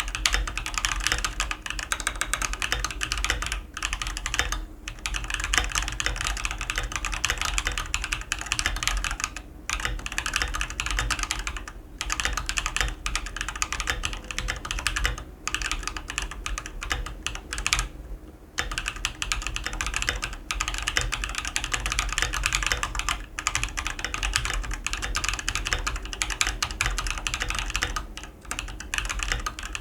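Continuous fast typing on an Akko 3098B Plus mechanical keyboard with Akko Cream Yellow V3 Pro linear switches and PBT double-shot keycaps: a dense clatter of keystrokes, broken by a few brief pauses.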